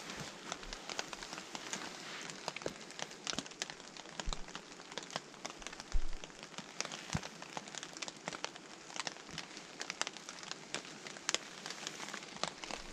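Steak frying in a pan on a camping gas stove, sizzling and spitting in a dense run of irregular crackles over a steady hiss, with one louder pop about six seconds in.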